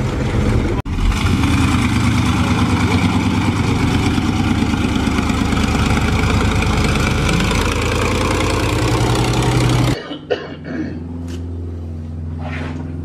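Swamp buggy's engine running loudly as the buggy drives off. It cuts off abruptly about ten seconds in, leaving a quieter, steady low hum with a few faint clicks.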